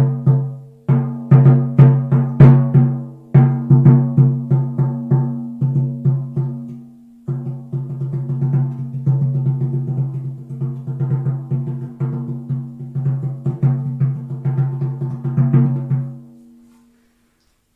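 A hand drum struck in a steady rhythm, each stroke ringing on the same low pitch: loud strokes about two a second at first, then quicker, softer strokes from about seven seconds in, dying away near the end.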